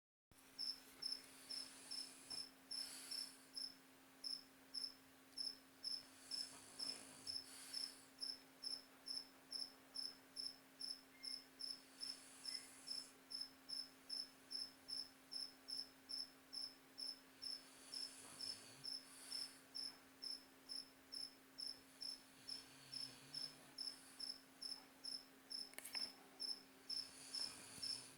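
Cricket chirping steadily, about two short chirps a second, over a faint steady hum.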